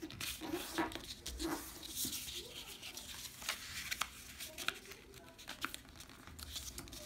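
A sheet of thin origami folding paper being folded by hand: soft rustling with many short, irregular crisp crackles as the folds are pressed and creased.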